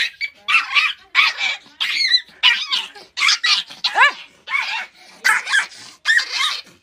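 Small fluffy puppy yapping over and over in rapid, high-pitched barks, about two a second, some with a quick upward-then-falling yelp. It is being held in someone's arms while it barks.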